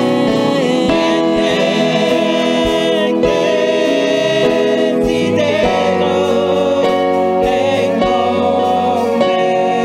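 Gospel worship song: several voices singing together over a band with a steady beat.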